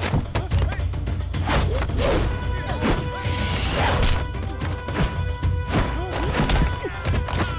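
Film fight sound effects: a quick run of punch and kick hits, with a swish about halfway through, over an action music score with a heavy low beat.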